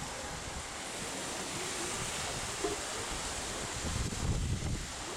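Wind buffeting the microphone over a steady outdoor rush of noise, with a stronger gust rumbling about four seconds in.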